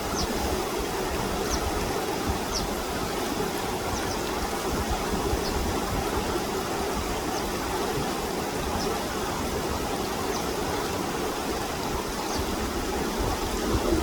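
Steady rush of running water, with short high bird chirps every second or two over it.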